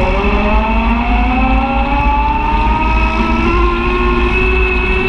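Side-by-side UTV engine running under way, its pitch climbing steadily over the first two to three seconds as it speeds up, then holding steady, with a low rumble underneath.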